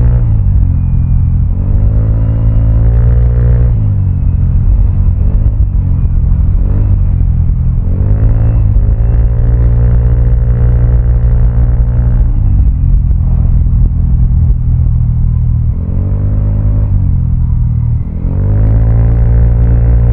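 Vespa automatic scooter's single-cylinder four-stroke engine through a Prospeed Black CNC aftermarket exhaust, ridden and throttled up and eased off several times. The pitch climbs on each acceleration and drops as the throttle closes, with a steady cruise in the middle.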